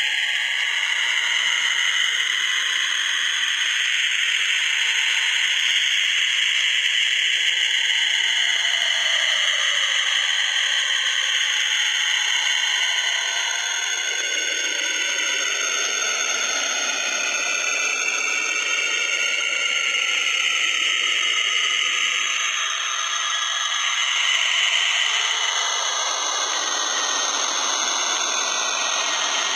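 The 'sound of Saturn': Saturn's radio emissions, recorded by the Cassini spacecraft and converted into audio. It plays as an eerie steady hiss with wavering, sliding whistle-like tones, one band sweeping down and then back up through the middle.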